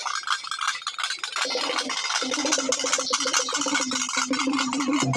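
Procession drumming: dappu frame drums and a barrel drum beaten fast with sticks in a dense run of strokes. A steady pitched tone joins in about a second and a half in.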